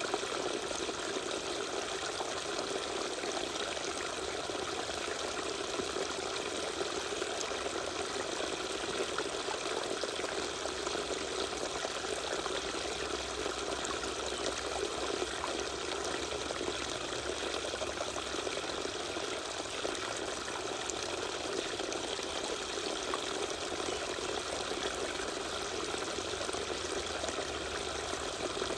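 Small waterfall pouring and splashing steadily.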